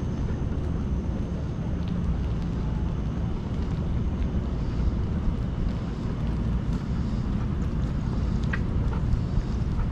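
Steady low rumble of wind and movement buffeting a GoPro microphone strapped to a walking dog's harness, with a couple of faint clicks.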